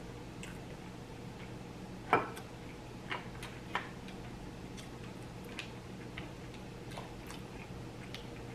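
Scattered sharp clicks of cooked mussel shells and a metal fork knocking against each other and the glass dish as mussels are picked out, the loudest about two seconds in, over a faint steady hum.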